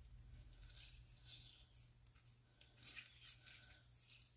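Faint squishing and dripping of half a lemon squeezed by hand through a small mesh strainer, with a few soft clicks over a low steady hum.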